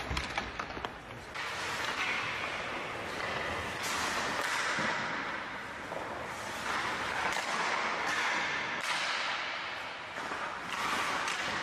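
Hockey pucks being shot and struck on an empty practice rink: a few sharp cracks of stick on puck, each followed by a long echo through the empty arena.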